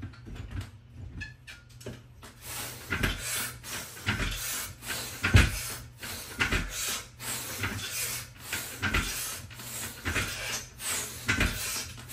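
A person breathing hard during a set of pull-ups: short forceful breaths about once a second, some with a low thump, starting a couple of seconds in.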